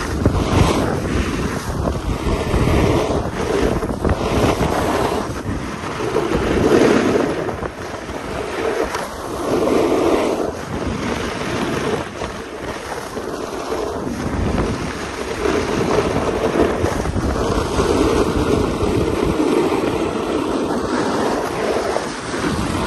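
Wind buffeting the microphone at speed, mixed with the hiss and scrape of snowboard edges carving over groomed packed snow, swelling and fading with each turn.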